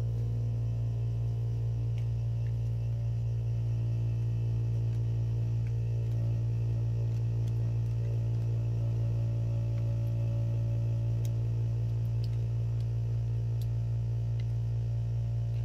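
Steady low electrical hum with a few faint ticks.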